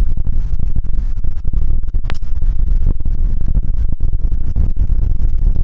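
Wind buffeting the camera microphone, a loud, ragged low rumble, with one brief sharp sound about two seconds in.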